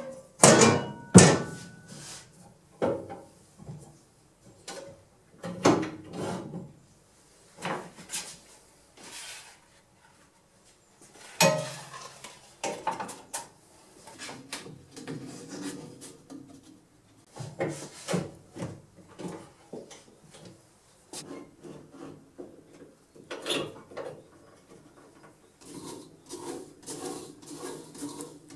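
Irregular clunks, knocks and rubbing as a sanding belt is fitted by hand to a Model 4.2 knifemaking belt grinder that is switched off: the metal side cover is opened and the abrasive belt is worked over the wheels and set for tracking.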